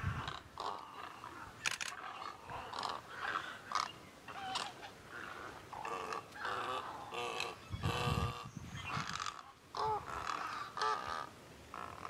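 Wading birds in a mixed gathering calling: many short, harsh croaks and squawks overlapping almost without pause, with a brief low rumble about eight seconds in.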